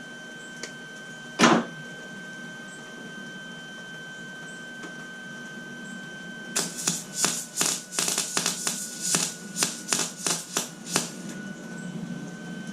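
Lincoln Electric 140 MIG welder laying a tack weld on steel: the arc crackles and spits in a dense, irregular run lasting about four seconds, starting about halfway through. A single sharp click comes about a second and a half in, and a steady high tone runs underneath.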